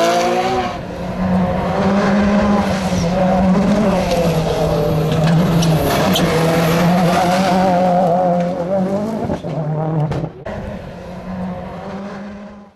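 Rally car engine driven hard on a test stage. The revs climb and drop about a second in, then the engine holds a fairly steady note with a wavering pitch. It fades noticeably quieter from about ten seconds in and cuts off at the end.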